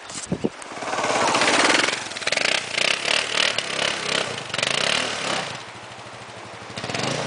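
Motorcycle engine running under throttle while riding. It rises about a second in, eases off for a moment near the end, then picks up again.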